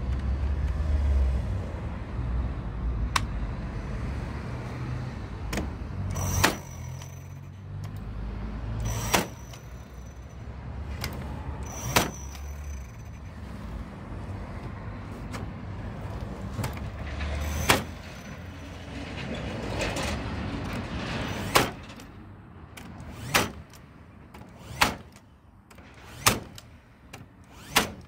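Stanley FatMax V20 cordless 16-gauge nail gun firing nails into feather-edge fence boards: about nine sharp shots, a few seconds apart at first and about every 1.5 s near the end. A low rumble sits underneath for the first two-thirds.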